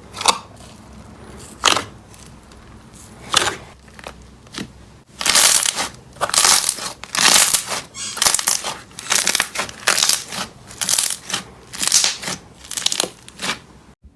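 Crunchy slime being pressed and squeezed: a few separate sharp crackles, then from about five seconds in a quick run of crunching, crackling bursts.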